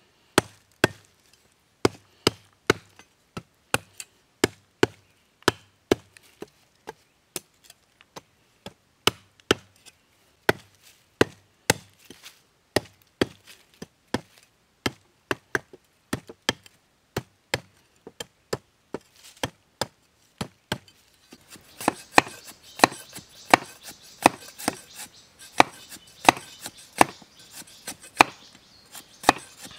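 Machete chopping and trimming a wooden stick against a log: sharp wooden chops, about two a second. About two-thirds of the way through, a steady high hiss joins beneath the chops.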